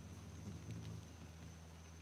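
Faint wing hum of a ruby-throated hummingbird flying in to a feeder, rising slightly about half a second in over a steady low background hum.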